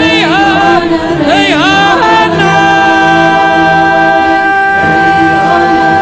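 Iranian folk song: a voice sings quick ornamented turns, then, about two seconds in, holds one long steady note over a sustained low drone.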